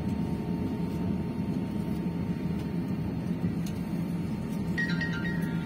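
Steady low drone of cabin noise inside an Airbus A320-214 as it rolls slowly on the ground after landing. Near the end comes a brief run of a few high notes.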